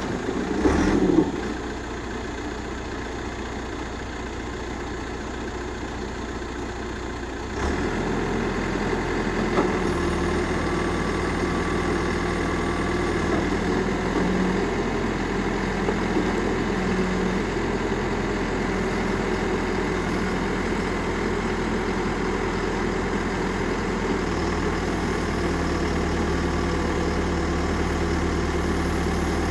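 CAT 416C backhoe loader's four-cylinder diesel engine idling steadily. A brief louder sound comes about a second in, and the engine note steps up and gets a little louder around eight seconds in, then holds steady.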